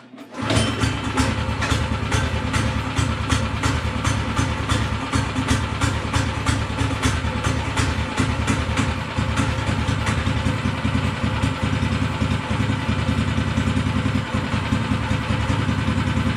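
Snowdog Compact's 7-horsepower air-cooled small engine, freshly started, running steadily with a fast, even firing beat. It comes in abruptly about half a second in.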